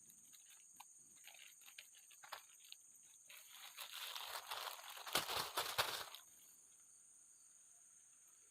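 Crinkling, rustling handling noise with scattered small clicks, growing louder for about three seconds in the middle and then stopping, over a steady high insect drone.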